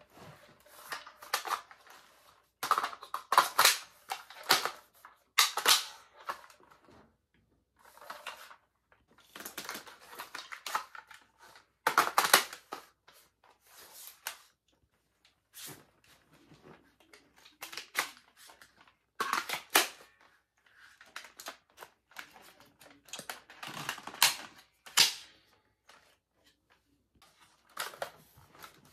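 Plastic toy M16-style rifle being handled and reloaded: irregular clusters of clicks and rattles from its magazine and action, with short pauses between them.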